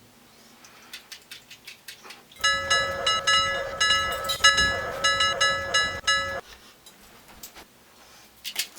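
A loud test sound about two seconds in: a ringing chord of several steady tones over a low rumble, pulsing about twice a second. It lasts about four seconds, then cuts off abruptly. Faint clicks come before and after it.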